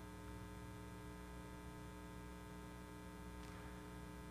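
Faint, steady electrical mains hum with several even tones stacked above it, and nothing else of note.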